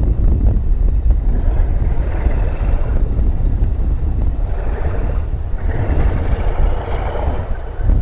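ALCO diesel locomotives running, with heavy wind rumble on the microphone; the engine sound swells twice, briefly about two seconds in and for longer near the end.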